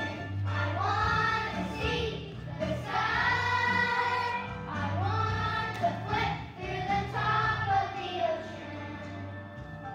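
A group of young children singing together over instrumental accompaniment, in sung phrases of a second or two with short breaks between them.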